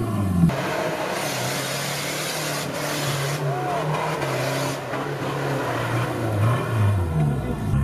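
Off-road 4x4 vehicle's engine running at steady revs, then revving up and down near the end, over a steady rushing noise.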